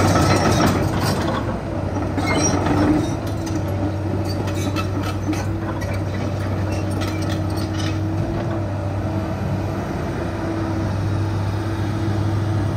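Komatsu PC210LC-8 excavator's six-cylinder diesel engine running steadily while the machine swings and works its boom and bucket, with scattered metal clinks and rattles from about two to eight seconds in.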